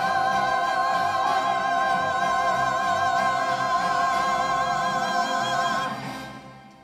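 Church choir singing one long held chord with vibrato, cut off about six seconds in and fading away into the room.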